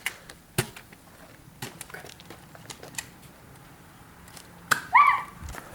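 Scattered sharp clicks and knocks, and about five seconds in a short high-pitched sound that rises and falls.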